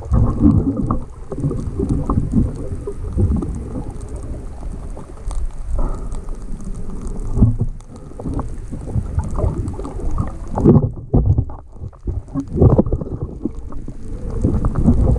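Muffled underwater sound picked up by a waterproof action camera: water sloshing and rumbling irregularly around the housing as the camera moves through the water. The higher sounds drop away for a couple of seconds late on, leaving only the dull low rumble.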